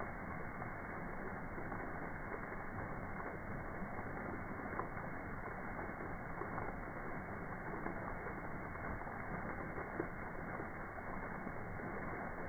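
Water from a fountain's arcing jets splashing onto rocks and into the pool, a steady rushing with a few small ticks, slowed down along with the slow-motion footage so that it sounds dull and muffled.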